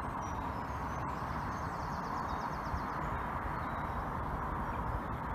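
Wind rumbling on the microphone over a steady outdoor hiss, with a small bird singing a rapid, even trill for about two seconds starting about a second in, after a few short high chirps.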